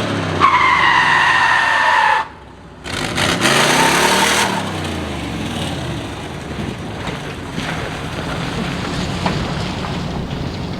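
1968 Chevy C10's 327 small-block V8 revving through a burnout, the rear tires squealing as they spin. The sound drops out briefly about two seconds in, then carries on as a steadier rush of engine and spinning tires.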